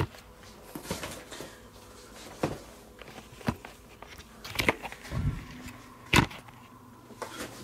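Knocks and thumps from a cardboard shipping box being handled and turned over, about eight scattered over several seconds, the sharpest a little after six seconds in.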